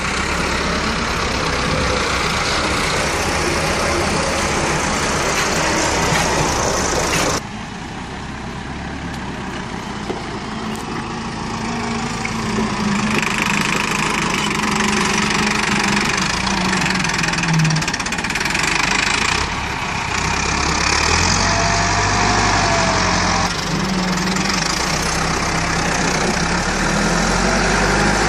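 Massey Ferguson 375 tractor's four-cylinder diesel engine running as it tows a trolley over dirt. The sound changes abruptly a few times, about a third of the way in, around two-thirds and again shortly after.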